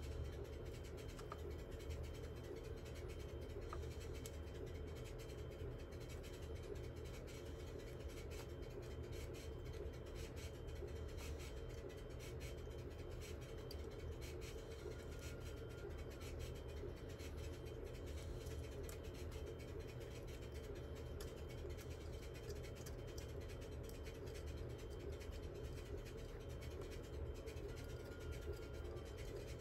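Light scratching and scattered small clicks of hand tools working on a circuit board during desoldering, over a steady low hum.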